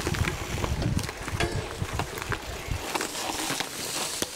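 Gravel bike ridden over a rough trail: a rushing rumble of tyres and air with many sharp clicks and rattles from the bike. The low rumble drops away about three seconds in, leaving mostly the clicks.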